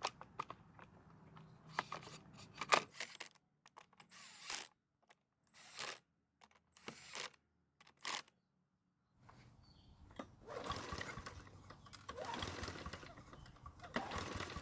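Toro commercial mower's recoil starter pulled several times, each pull a short rasping turn-over of the engine that does not catch, separated by silent gaps. It will not start because the fuel shutoff valve is closed. A steadier rushing noise follows in the last few seconds.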